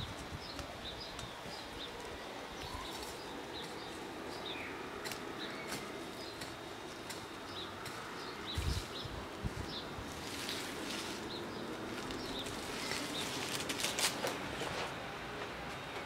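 Small birds chirping in short, high, scattered calls throughout. Close by, a flat wooden stick scrapes and knocks in dry garden soil around a plastic nursery pot, with a couple of low thumps about nine seconds in and a busier run of scratching and clicks from about ten to fifteen seconds in.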